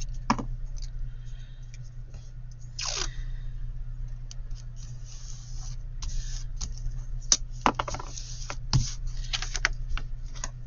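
Thick cardstock being handled and worked on a craft table: paper scraping and rustling, with a longer scrape about three seconds in and several sharp taps and clicks later on, over a steady low hum.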